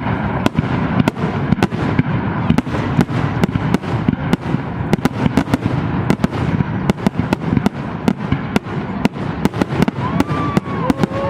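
Fireworks display: a rapid, irregular barrage of sharp bangs, several a second, over a continuous low rumble.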